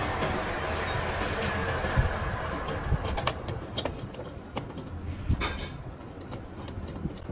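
Light metallic clinks and knocks as a cast aluminium fries-cutter bracket is fitted onto its steel guide rods, scattered from about three seconds in, the loudest a little past five seconds. Under them, a steady background noise fades away over the first three seconds.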